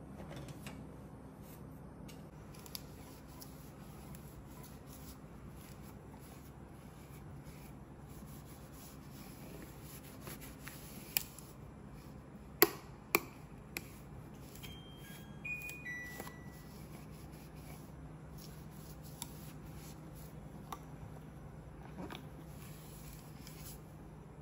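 Quiet room with a steady low hum. About halfway there are a few sharp clicks or knocks, and right after them three short electronic beeps, each lower in pitch than the one before.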